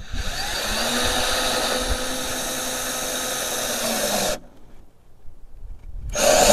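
An electric power tool runs steadily for about four seconds, its motor spinning up at the start and winding down as it stops. Near the end a short scraping stroke on wood begins.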